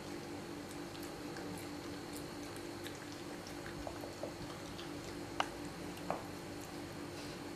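Siberian husky puppy nosing and licking at treat crumbs on carpet: small wet mouth clicks over a steady low hum, with two sharper clicks near the end.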